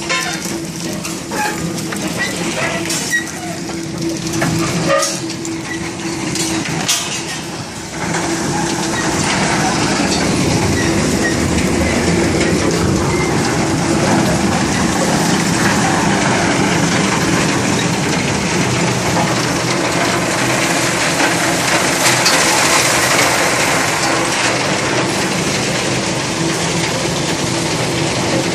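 Bucket-chain gravel excavator driven by a 35 kW electric motor, running: a steady hum under the clatter of the bucket chain. Scattered knocks come in the first seconds, and it becomes louder and denser from about eight seconds in.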